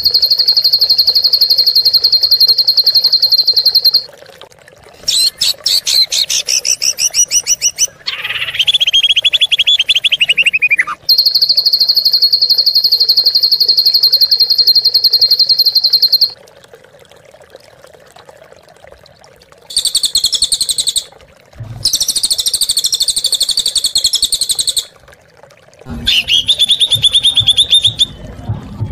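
Recorded songbird calls of the harsh, rapid kind used as masteran to train cage songbirds. Long fast trills are held on one high pitch for several seconds, alongside a buzzy stuttering series, a rough call sliding down in pitch and scratchy chatter, with short gaps between them.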